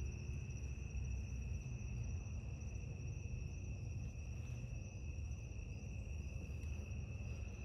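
Crickets trilling steadily in a continuous high-pitched chirr, over a low rumble.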